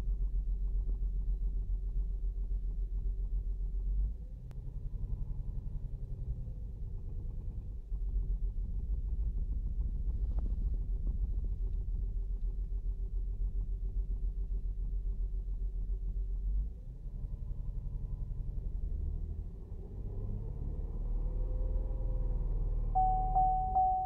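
The 3.6-litre V6 of a 2008 Saturn Outlook running with a low rumble that drops and rises in level several times; the engine has a logged cylinder 1 misfire (code P0301). A steady high tone sounds about a second before the end.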